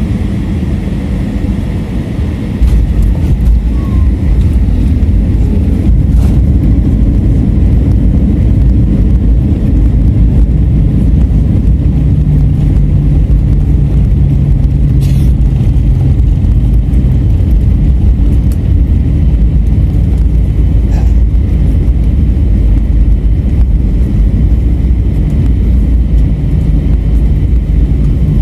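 Airbus A321 airliner heard from inside the cabin as it lands: the steady engine noise jumps to a much louder low rumble about two and a half seconds in, as the wheels meet the runway and the jet rolls out. The heavy rumble then carries on steadily, with a low hum held for several seconds in the middle.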